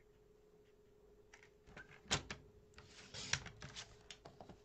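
Paper and craft tools handled on a work table: scattered taps and knocks with short paper rustles, starting about a second in, the sharpest knock about two seconds in.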